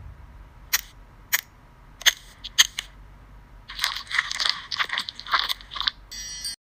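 Sound effects for a toenail treatment: five sharp clicks in the first three seconds, then a couple of seconds of close, scratchy brushing as a brush applicator dabs liquid onto the nail. It ends with a short buzzy electronic glitch.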